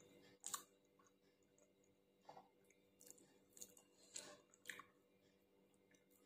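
Faint chewing and lip-smacking of someone eating rice: a handful of short soft clicks and smacks over near silence, the sharpest about half a second in.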